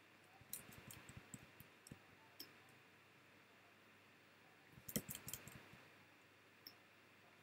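Faint computer mouse clicks in near silence: scattered single clicks over the first couple of seconds, then a quick run of clicks about five seconds in.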